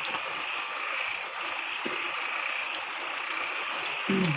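Steady high hiss of forest background ambience, with a brief voice near the end.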